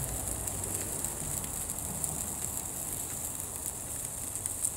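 Faint crackling from the charred, smouldering remains of an air fryer, with small clicks over a steady hiss as light rain begins to fall.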